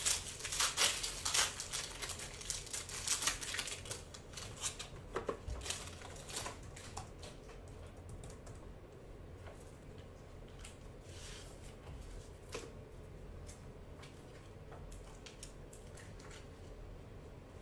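Hands tearing open a foil Panini Prizm trading-card pack and handling the cards: a dense run of crinkles and clicks in the first few seconds, then sparse soft ticks.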